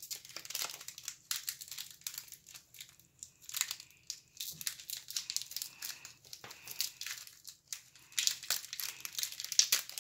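Wrapper of a wax pack of trading cards being crinkled and torn open by hand: irregular crackling and rustling, busier and louder near the end.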